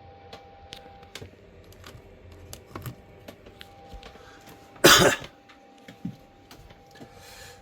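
One loud cough about five seconds in, against scattered light clicks and taps.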